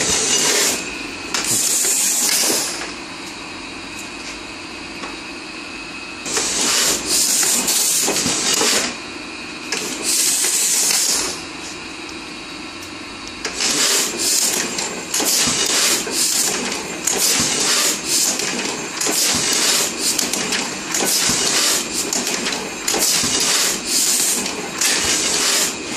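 Heidelberg Tiegel (windmill) platen press running as a hot-foil stamper: a mechanical clatter with a hiss on each cycle. The cycles come singly and spaced apart at first, then steadily at about one a second from about halfway on.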